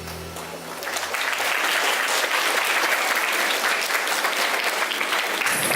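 The last chord of a jazz piano trio dies away, and then an audience applauds steadily for about five seconds.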